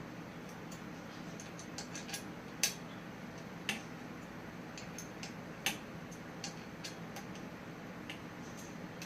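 Scattered small metallic clicks and clinks of tools and BMX parts being handled during a handlebar and stem fitting, three of them louder, around the middle, over a steady low hum.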